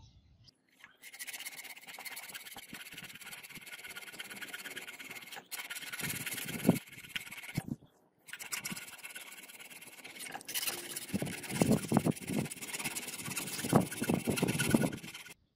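Hand file rasping back and forth across a cast brass habaki (the blade collar) held in a bench vise. It starts about a second in, pauses briefly twice, and the strokes get louder in the last few seconds.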